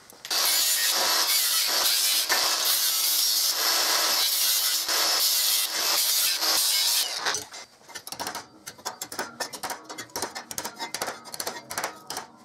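Cordless angle grinder with a cutoff wheel grinding the plasma-cut edges of a bent stainless steel piece for about seven seconds, to clean off the black plasma-cutting residue before welding. It is followed by a quick run of light hammer taps on the stainless piece, about five a second, knocking it in to close up the fit-up gaps.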